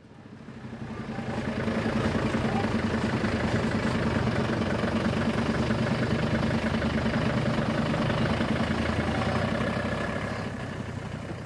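Engine of a road tourist train driving by at low speed, a steady hum with a fast pulse. It grows louder over the first couple of seconds and fades toward the end as the train passes.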